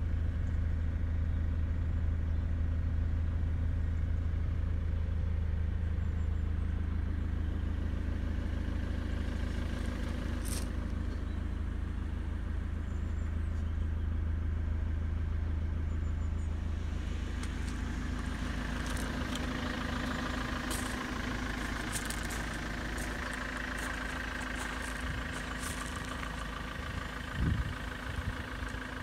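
Ford Transit minibus diesel engine idling steadily. It is heard first as a strong low hum from the driver's cab, then more faintly from the passenger area and outside. There is a single thump near the end.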